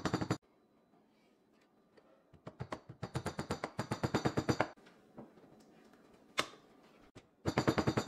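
Quick light hammer taps, about nine a second, driving a glue-coated golf tee up into a stripped screw hole in particle board. There are three runs of tapping: a short one at the start, a longer one from a few seconds in, and another near the end.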